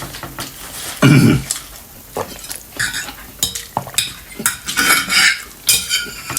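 Metal utensils clinking and scraping against cookware, with food sizzling in a pan and a heavy knock about a second in.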